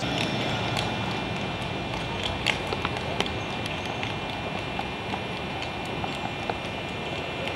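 Horse's hooves clopping on the pavement as it pulls a wagon, in scattered irregular knocks over a steady street hum.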